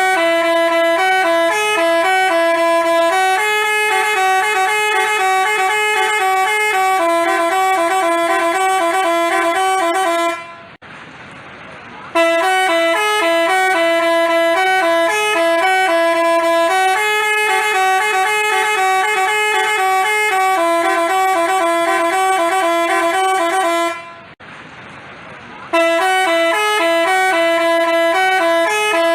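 Telolet basuri bus horn playing a repeating multi-note melody in steady stepped tones. The tune breaks off twice, for about a second and a half each time, then starts over.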